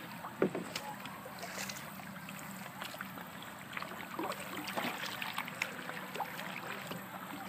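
Kayak paddling on calm water: paddle blades dipping, with water splashing and dripping in irregular small spatters.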